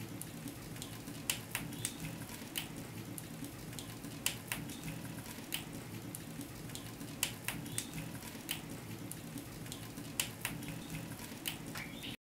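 Wood fire crackling in an open hearth: irregular sharp pops and snaps, one or two a second, over a low steady background.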